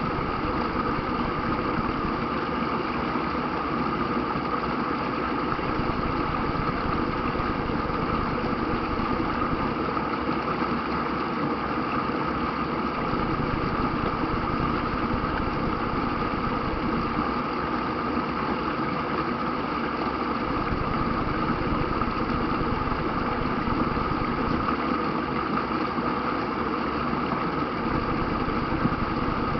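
Steady rush of water over river rapids, a continuous even roar with no breaks.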